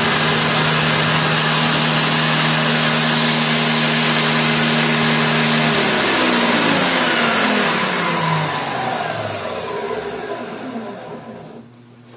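Lotus table saw motor and blade running steadily at full speed, then switched off about halfway through and coasting down, the whine falling in pitch and fading out near the end.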